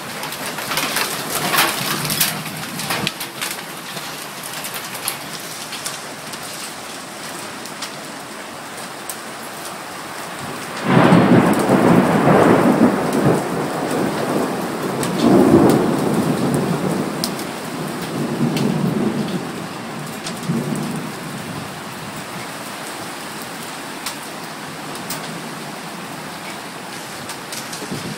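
Heavy rain mixed with hail pattering on a wet timber deck, with sharp hailstone ticks thick in the first few seconds. About eleven seconds in, a roll of thunder starts suddenly and rumbles for around ten seconds, swelling several times before it fades back to the rain.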